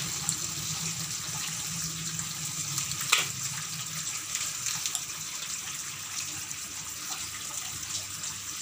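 Kitchen tap running steadily into a stainless-steel sink, splashing over bunches of water spinach as hands rinse the stems. A brief sharp knock about three seconds in.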